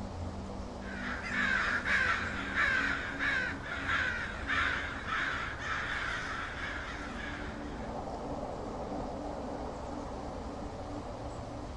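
Crows cawing, a quick series of harsh caws at about two a second that stops after some six seconds, over a low steady drone.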